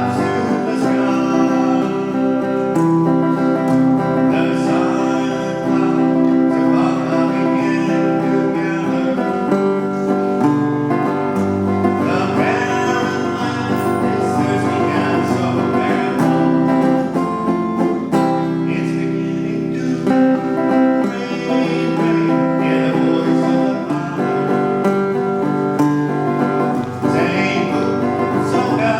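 A song playing: guitar-led music with sustained chords and a singing voice in places.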